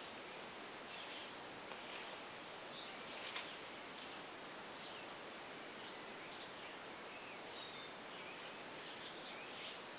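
Steady outdoor background hiss with faint, short high chirps scattered throughout, and a single brief click about three and a half seconds in.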